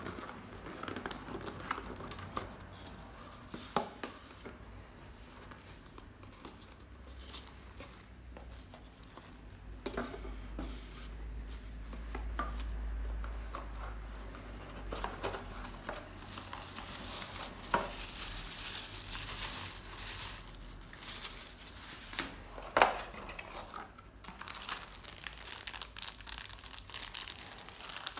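Unboxing sounds: a black cardboard box handled, its lid slid off and box parts knocking on the table, then plastic bags of accessories crinkling, loudest in the second half, with one sharp knock a few seconds before the end.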